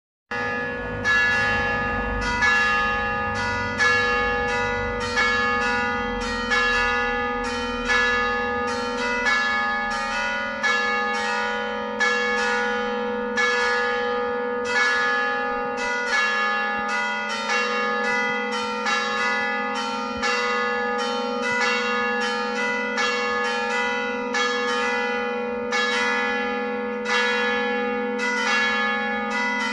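Three church bells (nos. 2, 3 and 4 of a five-bell electrified concert by De Santis of Corinaldi) struck in a quick repeating round by hammers to simulate a swinging peal, a "distesa simulata". The bells are hammered instead of swung because of earthquake damage. Their notes overlap and ring on, starting abruptly at the very beginning.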